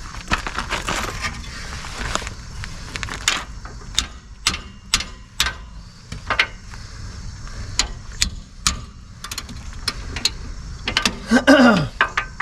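Half-inch-drive ratchet clicking as it is worked back and forth on a rear brake caliper bolt, a sharp click roughly every half second.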